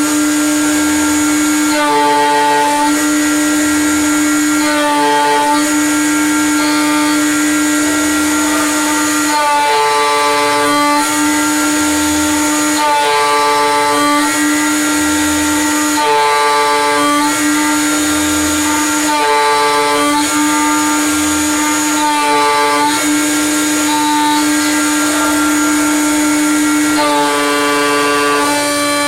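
CNC mill's Chinese milling spindle running with a steady whine while the cutter mills aluminium. A higher cutting sound swells and fades about every three seconds as the tool loads up on each pass.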